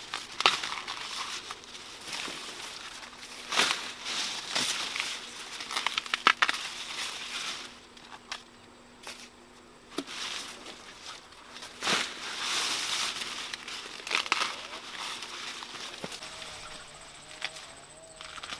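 Dry corn leaves and husks rustling and crackling, with a sharp snap every few seconds as ears of sticky corn are broken off the stalks.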